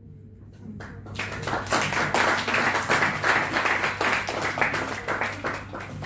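Audience applauding: a few scattered claps, then steady clapping from about a second in that thins out near the end.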